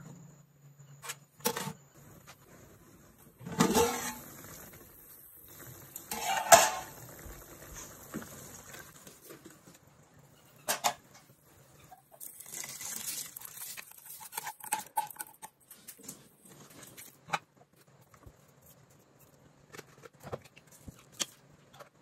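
Wooden spoon knocking and scraping against a large aluminium cooking pot, several sharp clatters in the first half. About twelve seconds in, raw rice is poured from a container into the broth: a brief pattering hiss.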